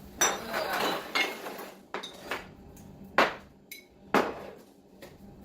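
Containers being handled and set down in a kitchen cabinet: about five separate knocks and clinks, roughly a second apart, some with a short glassy ring, as jars and bottles are moved.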